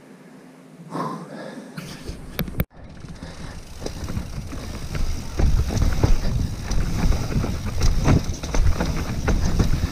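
Mountain bike riding down a dirt trail: a noisy rumble full of clicks and rattles from the tyres and bike over the rough ground, quiet at first and growing louder as speed builds from about five seconds in.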